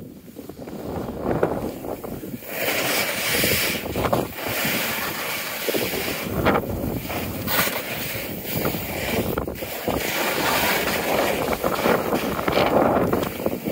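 Wind buffeting the microphone over the hiss and scrape of a rider sliding fast downhill on wind-packed snow, with sharper surges of scraping at the turns.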